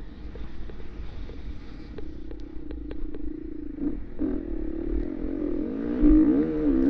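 Dirt bike engine running under way, its pitch rising and falling as the throttle is worked and growing louder about six seconds in. A few sharp clicks and knocks come in the first three seconds over a constant low rumble.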